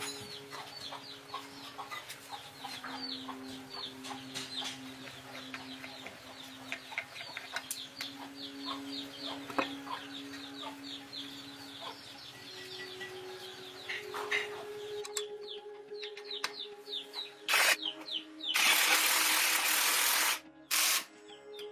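Birds chirping rapidly and over and over, short falling calls, over a low steady hum. About 18 seconds in, a loud rushing hiss lasts about two seconds.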